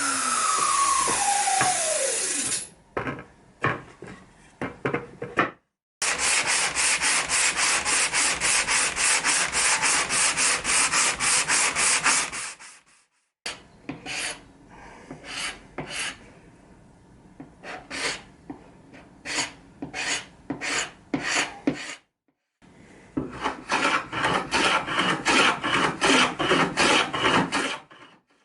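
Rapid back-and-forth abrasive strokes on wood, about four to five a second, in several separate stretches. At the start a motor winds down with a falling whine.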